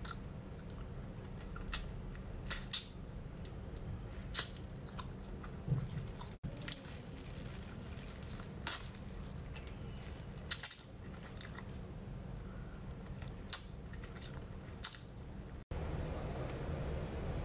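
Close-up wet chewing and lip-smacking of sticky glazed braised pork, with scattered sharp smacks over a steady low background hum. Near the end an abrupt cut brings a louder hum.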